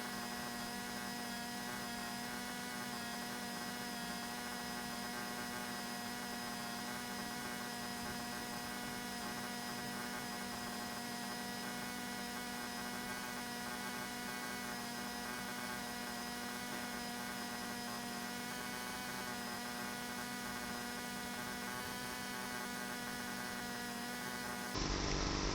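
Small Honda EX300 portable generator running at a steady speed, giving an even hum. Just before the end, a louder, closer engine sound cuts in.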